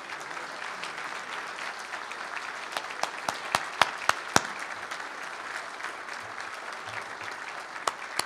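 Audience applauding steadily, with a few sharper, louder individual claps standing out from about three seconds in and again near the end.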